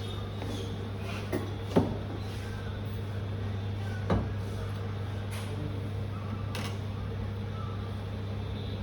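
A few sharp knocks and clicks of small hard objects being handled on a repair bench: three distinct knocks in the first half and fainter clicks later, over a steady low hum.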